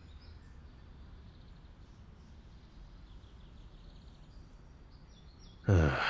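Faint outdoor ambience: a low steady rumble with distant bird chirps scattered through it. A man's voice starts near the end.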